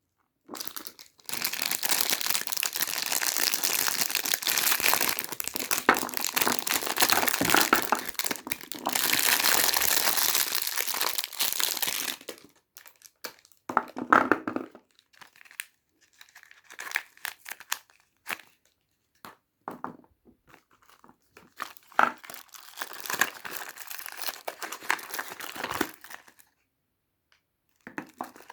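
Soap bar wrappers being torn open and crinkled by hand. A long stretch of continuous crinkling and tearing comes first, then shorter, scattered bursts of rustling that stop near the end.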